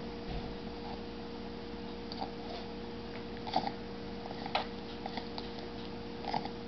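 A baby's small mouth noises while feeding herself finger food: faint smacks, sucks and sniffs, a few clearer clicks about halfway through, over a steady low hum.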